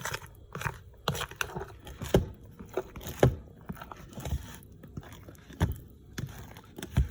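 Fork beating cake batter by hand in a mixing bowl: irregular taps and scrapes against the bowl, one or two a second, with a few heavier knocks.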